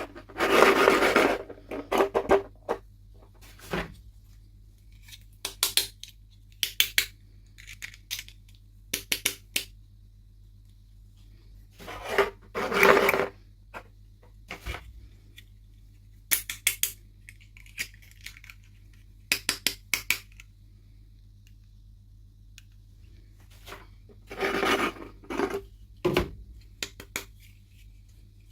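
Small plastic miniatures and their packaging being handled: scattered sharp clicks and clinks, with three longer rustling clatters, about a second in, about halfway and near the end.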